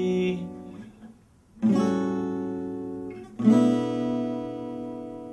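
Acoustic guitar chords strummed and left to ring: a chord dies away, then a new chord is struck a little under two seconds in and another a second and a half or so later, each fading slowly.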